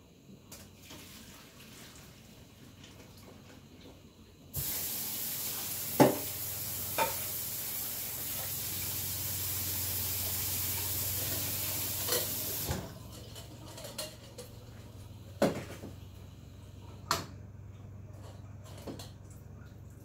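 Water running steadily in a kitchen, switched on abruptly and cut off about eight seconds later, with several sharp knocks of dishes or utensils.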